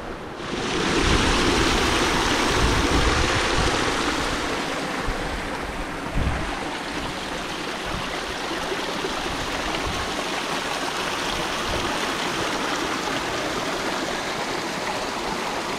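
Fast-flowing hillside stream in spate: a steady rush of water that sets in about half a second in and is loudest over the first few seconds.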